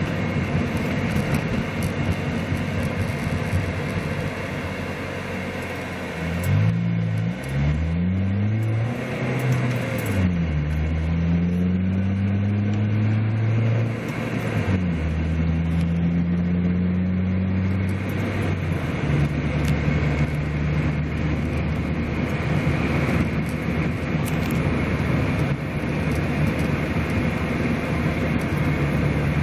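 Car engine and road noise heard from inside the cabin while driving. About six seconds in, the engine pitch climbs and drops several times as the car speeds up through its gears, then holds a steady cruise note.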